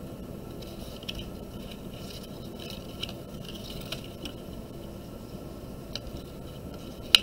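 Glue stick rubbed along a paper strip, giving soft scratchy scraping and paper rustling, then a sharp click near the end. A steady background hiss runs underneath.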